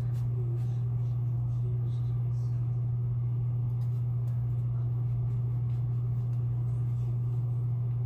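Steady low hum that does not change, with faint talking and a few small clicks underneath.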